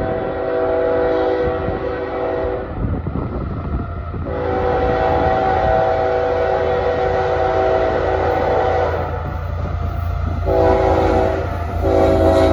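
Lead BNSF diesel locomotive's multi-chime air horn sounding in blasts: one ending about 3 s in, a long one, a short one and another long one starting near the end, the long-long-short-long grade-crossing signal. Underneath, the low rumble of the approaching diesel locomotives grows louder.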